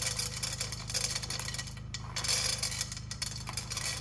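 Pine nuts poured into a dry non-stick wok: a quick, dense patter of small ticks and clinks as they land and scatter across the pan, heaviest a little past halfway.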